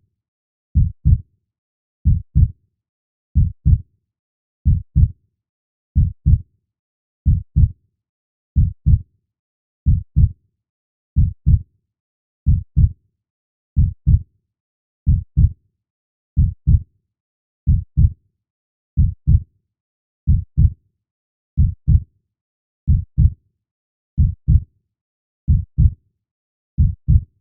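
Slow, steady heartbeat: paired lub-dub thumps repeating about every 1.3 seconds, deep and low-pitched.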